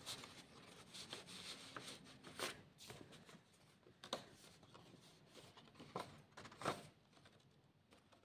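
Faint handling of paper and card: a few short rustles and light taps as journal tags and pages are moved by hand.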